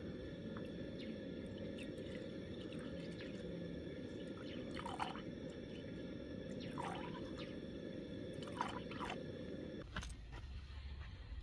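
Drops of hydrazine solution falling into the gold-bearing acid solution: four short liquid plinks that fall in pitch, from about halfway through to near the end. A steady low rumble runs under them and cuts off with a click near the end.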